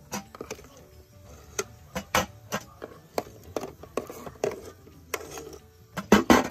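Steel ladle clinking against a metal pot and a steel plate as boiled eggs are lifted out of the water and set down: a string of sharp metallic knocks, the loudest cluster near the end.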